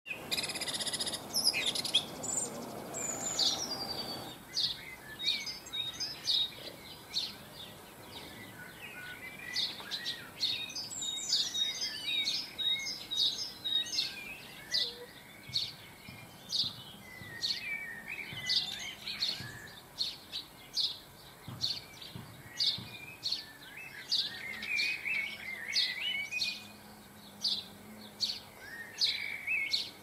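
Garden songbirds calling: short sharp chirps repeated about twice a second, with softer twittering between them. A burst of rushing noise covers the first four seconds.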